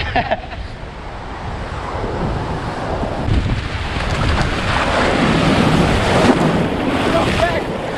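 Ocean surf breaking and water splashing as people wade and run into the waves, with wind buffeting the microphone throughout. The rush of water grows louder over the first few seconds.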